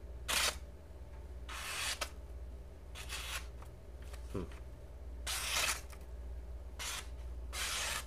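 A flipper knife's uncoated steel blade slicing through a sheet of paper in about six short, scratchy strokes. The cutting is audible, which the owner takes as a sign that the edge is not very sharp.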